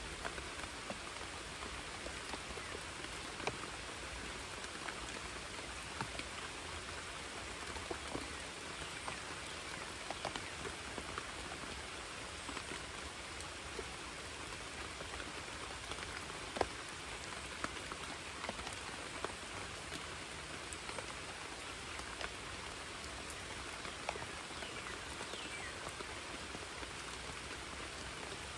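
Steady rain falling on a creek, an even hiss with scattered sharp taps of single drops landing close by.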